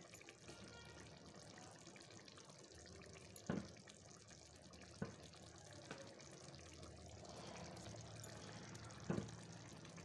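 Quiet kitchen sounds: four short soft knocks spread through, as halved boiled eggs are set one by one into chickpea curry in a metal pan, over a faint watery background hiss.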